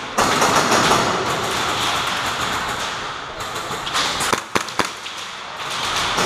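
Steady rustling and scuffing noise of a player moving with gear close to the camera. A little after four seconds in come three sharp cracks of airsoft pistol shots.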